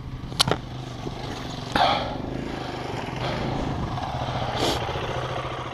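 KTM 300 two-stroke dirt bike engine running steadily at low trail speed, with two sharp knocks about half a second in and a brief louder surge near two seconds.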